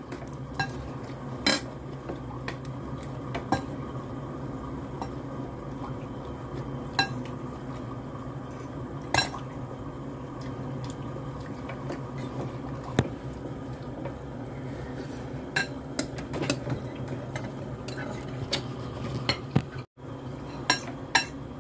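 Metal spoon clinking and scraping against a glass bowl of noodles now and then, sharp separate clinks over a steady low hum.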